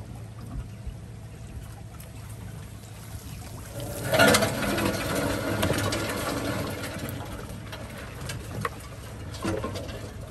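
A wire-mesh crawfish trap hauled up out of the water beside the boat: water pours and splashes off it about four seconds in, then trickles away. Under it, the low steady run of an idling outboard motor.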